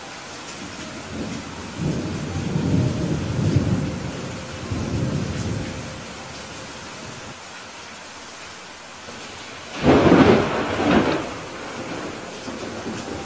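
Thunderstorm: steady heavy rain with a low rolling rumble of thunder from about two to five seconds in, then a sudden, louder thunderclap near ten seconds in that cracks and rolls on for about a second and a half.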